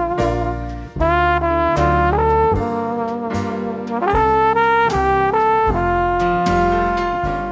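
Outro music led by brass, trumpet-like held notes over a strong bass, changing chord about every half second to second with a sharp hit on each change; it begins to fade near the end.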